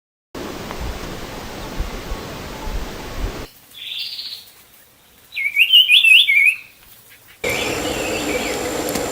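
Bird calls: a short call about four seconds in, then a loud run of quick warbling chirps, with more calls over steady background noise near the end.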